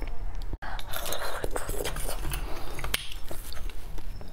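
Close-miked eating of roasted beef bone marrow: wet chewing and mouth sounds with a metal spoon clicking and scraping against the bone. The sound cuts out for an instant about half a second in.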